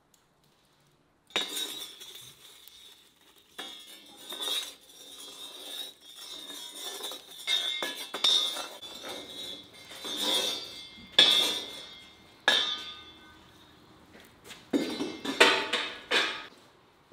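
Irregular sharp clinks and knocks, about a dozen, over a faint steady high ringing tone, starting suddenly about a second in, with the loudest hits near the middle and a cluster near the end.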